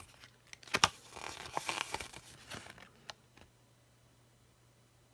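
Paper instruction leaflet rustling and crinkling as it is handled and unfolded, with a sharp tap just before a second in and another near three seconds in.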